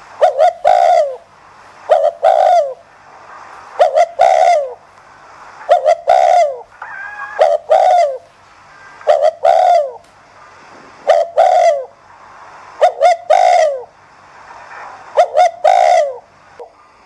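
Spotted dove cooing its quick, urging 'thúc gù' coo. It repeats a short phrase nine times, about once every two seconds; each phrase is two or three clipped notes and then a longer note that falls away at the end.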